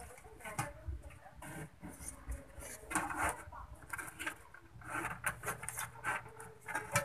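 Handling noise as an amplifier board with its finned aluminium heat sink is lifted out of its metal chassis: irregular rubbing, scraping and light knocks. A faint low hum comes in about five seconds in.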